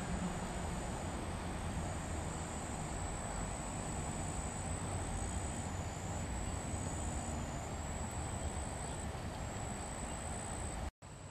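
Outdoor ambience of insects trilling steadily in a high, thin chorus over a low rumble. It cuts out completely for a moment near the end.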